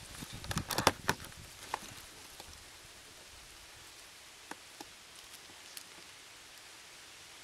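Dry fallen leaves crunching and crackling: a quick cluster of crunches in the first second or so, then a few scattered single crackles.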